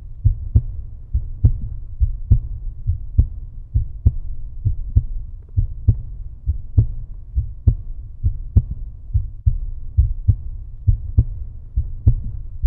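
Deep, bass-heavy rhythmic thumping: a strong beat a little more than once a second with lighter beats between, steady throughout.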